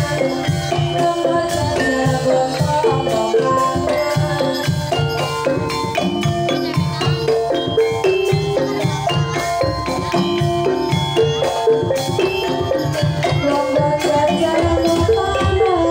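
Javanese gamelan playing a Banyumasan tayub piece: a wooden-keyed xylophone struck with mallets carries a busy melody over kendang hand drums and gongs.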